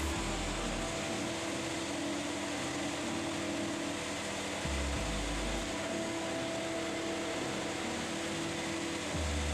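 Electric car radiator cooling fan, used as a workshop extractor, running steadily with an even rushing of air and a steady hum. A low rumble swells in briefly three times: at the start, about halfway and near the end.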